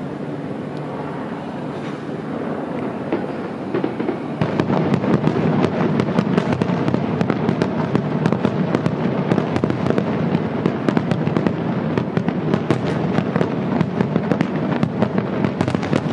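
Aerial fireworks shells bursting: at first a steady rumble of booms, then from about four seconds in a dense, rapid barrage of sharp bangs and crackles as many shells burst close together.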